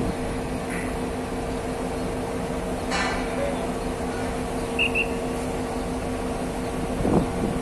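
Steady hum of heavy construction machinery. A short burst of noise comes about three seconds in, two quick high beeps just before five seconds, and a knock near the end.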